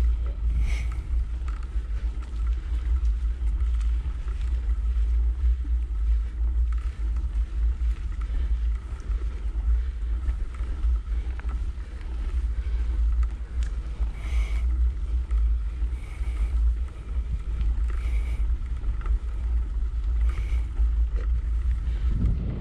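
Wind buffeting the microphone of a camera riding on a mountain bike on a dirt trail: a steady low rumble, with a few short clicks scattered through it.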